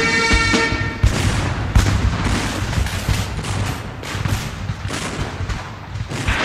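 Battle sound effects: dense rifle fire, many overlapping and scattered shots, over a low rumble. Bagpipe music breaks off about a second in.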